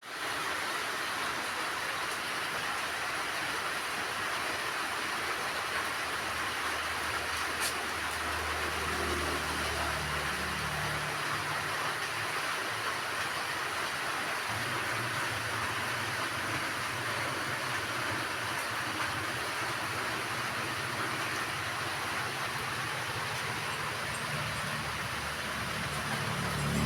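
Rain falling steadily, an even hiss. A low steady hum joins in about seven seconds in and carries on.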